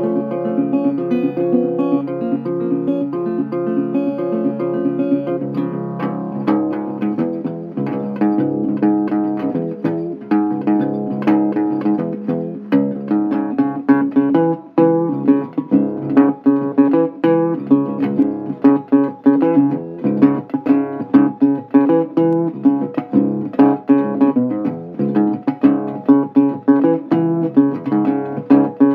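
Instrumental guitar music: held, ringing notes at first, then about six seconds in a busier run of quickly picked notes.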